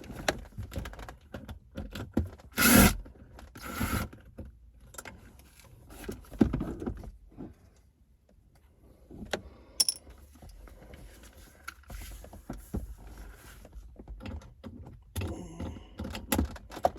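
Cordless drill backing out the Phillips screws of a car's center-console armrest lid in several short runs, with clicks and knocks from handling the plastic parts.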